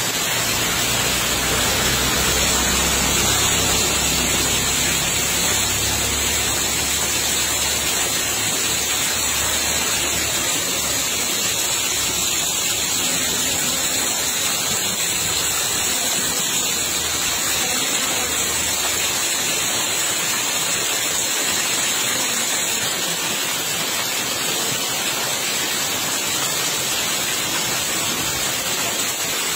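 Heavy rain and muddy floodwater rushing past, a steady wash of water noise with no breaks.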